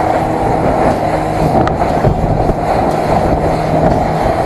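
Small fishing boat under way at speed: a steady engine drone with rushing wind and water against the hull.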